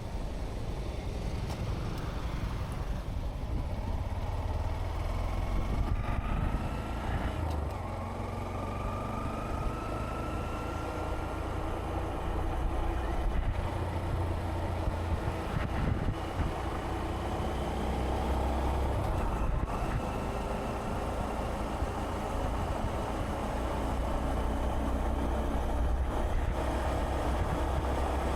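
Honda Monkey 125's single-cylinder engine running under way, with a heavy low rumble throughout. Its pitch climbs slowly, falls back briefly about a quarter of the way in, then climbs again.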